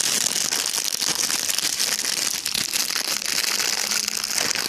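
Phone microphone rubbing and scraping against hair and clothing: a loud, continuous crackling scratch that cuts off suddenly at the end.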